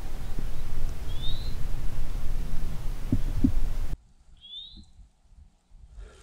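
Heavy low rumble on the microphone with irregular throbbing, and a single short rising bird chirp about a second in. The rumble cuts off abruptly about four seconds in, leaving quiet with one more short chirp.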